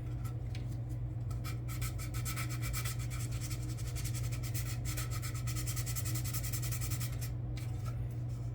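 Sandpaper rubbing in rapid back-and-forth strokes over dried body putty on a plastic scale-model car body. The strokes start about a second in and stop shortly before the end, over a steady low hum.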